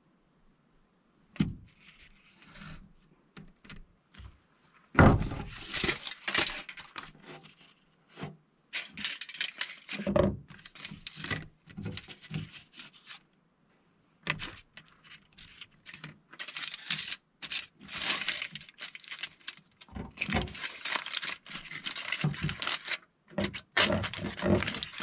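Aluminium foil crinkling and rustling in repeated bursts as it is folded and crimped into a packet by hand, with occasional knocks on the table, the loudest about five seconds in.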